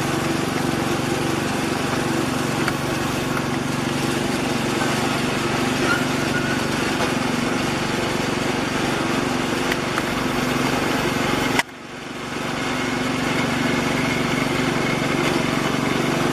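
Steady engine drone of an Airbus A330 airliner on landing approach, with a low hum under a wide rushing noise. About two-thirds through it cuts out suddenly, then fades back up.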